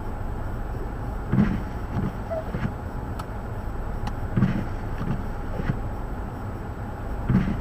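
Steady low rumble of blizzard wind buffeting the microphone, with dull low thumps recurring every second or so.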